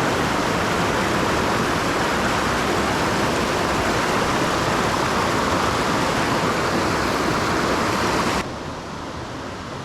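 Rushing water of a mountain trout stream, a steady loud rush that drops suddenly to a quieter, duller rush near the end.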